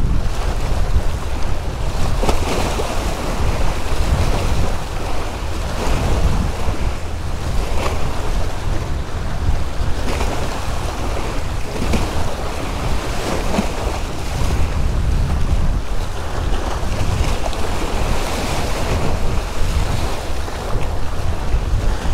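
Strong wind buffeting the microphone with a heavy low rumble, over choppy waves washing and splashing against the stone blocks of a rock jetty, swelling and ebbing every second or two.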